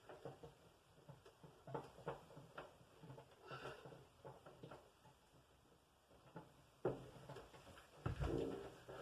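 Scattered light knocks and bumps of a wine cooler being pushed and settled into its opening, with a sharper knock about seven seconds in and a heavier thud near the end.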